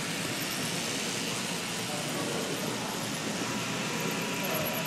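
Steady background noise of a busy train show hall: an even hiss with no distinct events.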